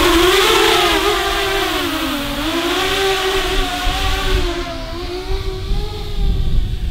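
Eight-motor X8 FPV cinelifter drone's brushless motors and propellers whining as it takes off and flies carrying a heavy gimbal and camera, the pitch wavering with the throttle. About four and a half seconds in the sound grows fainter and duller, over a low wind rumble.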